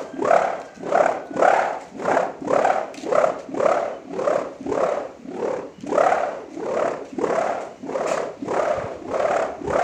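Bamboo kite hummer bow whirled through the air, giving a buzzing drone that swells and fades with each swing, about two pulses a second.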